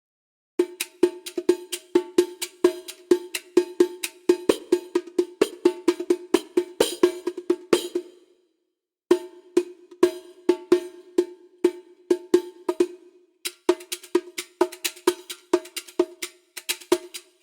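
Sampled Middle Eastern hand-drum percussion from the Discovery Series Middle East Kontakt library, playing fast rhythmic patterns of ringing, pitched strokes. It comes in three phrases with brief pauses between them.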